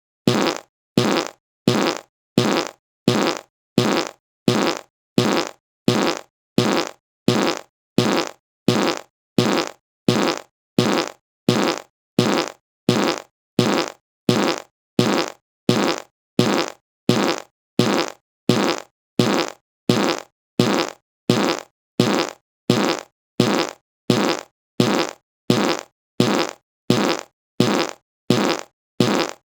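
A short fart sound effect played again and again at an even pace, about one and a half times a second. Each one is a brief pitched burst that cuts off sharply.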